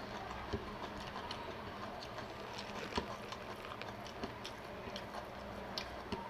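Close-miked eating sounds: a person chewing, with many small wet mouth clicks and a sharper knock about three seconds in.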